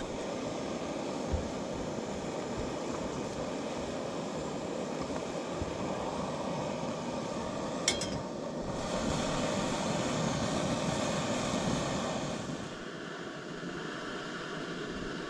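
Wind blowing, a steady rush that gusts louder about nine seconds in and eases off near the end, with a single sharp click about eight seconds in.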